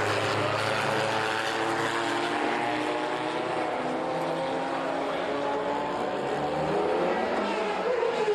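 Race car engine running at high revs, its note sinking slowly over several seconds; a new, higher engine note cuts in near the end.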